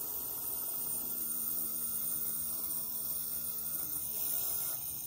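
Fidget spinner spinning in a vacuum: a steady hum from its bearings, heard only because it conducts through the glass jar into the stainless steel pot, not through the air. Part of the hum drops out about four seconds in.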